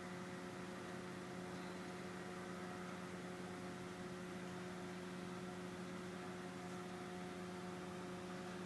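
Steady low electrical hum, a few constant tones over a faint hiss, unchanging throughout.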